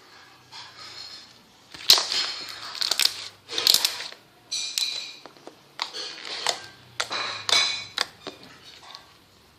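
Slime being squished and pressed by hand: irregular crackling squelches punctuated by sharp clicks and pops, starting about two seconds in and recurring at uneven intervals.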